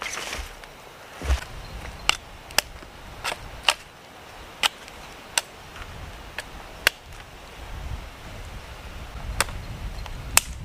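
About eleven sharp, irregular clicks or knocks over a steady hiss, with low wind rumbles on the microphone about a second in and again near the end.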